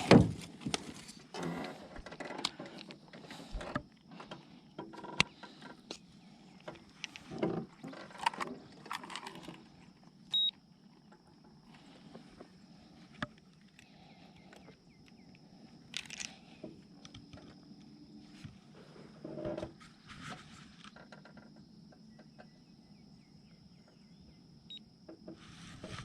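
Scattered clicks, knocks and rustles of a freshly caught largemouth bass being handled and hung on a scale for weighing. From about four seconds in, a faint steady high tone runs underneath.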